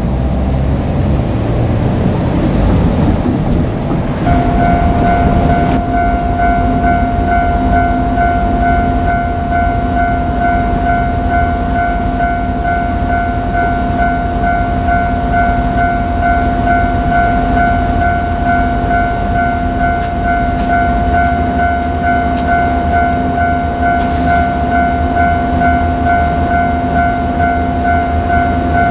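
Japanese railway level-crossing warning alarm starts ringing about four seconds in and keeps ringing steadily, over a low engine rumble.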